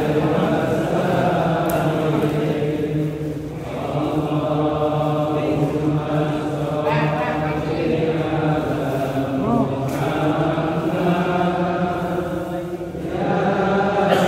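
A group of men's voices chanting in unison, in long held lines that pause briefly for breath about three and a half seconds in and again near the end.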